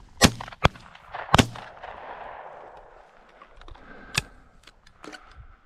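Shotgun shots at a flushed covey of quail: two loud, close blasts about a second apart near the start with a fainter shot between them, then another fainter shot about four seconds in.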